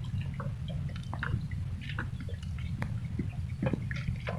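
Water lapping and dripping against a small wooden rowing boat, heard as scattered short splashes and ticks over a steady low rumble.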